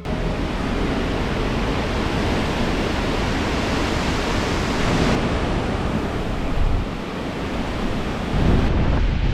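Strong wind gusting against the microphone, a rough, rumbling rush of noise that grows a little louder near the end.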